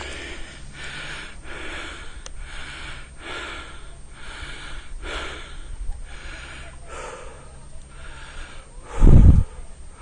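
A man breathing hard and fast, about one and a half breaths a second: out of breath and exhausted from a long hike down a steep rocky path. A loud low thump about nine seconds in.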